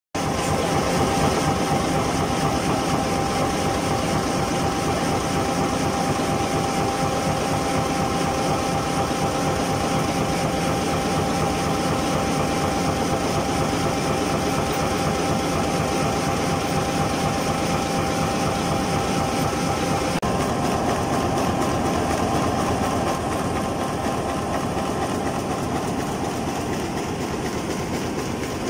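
High-speed flexo printer slotter die cutter for corrugated board running, a fast, even clatter with a steady whine over it. About two-thirds through the whine drops away and the running noise eases off a little.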